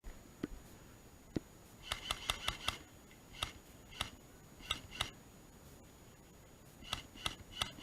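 Airsoft gun firing semi-automatic shots, sharp snapping clicks: a quick string of five about two seconds in, then single and paired shots spread through the rest. Two duller knocks come before the first string.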